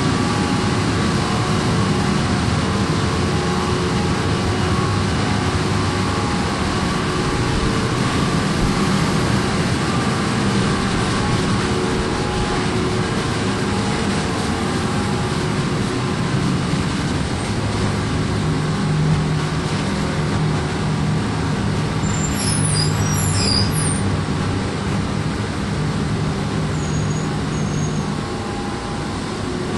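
The machinery of the double-deck ferry ms Prins Johan Friso running: a steady drone with a constant hum. A deeper hum tone comes in about eighteen seconds in, and a brief high chirping sound is heard a few seconds later.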